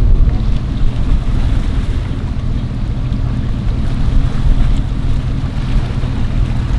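Steady, low engine rumble, with wind buffeting the microphone.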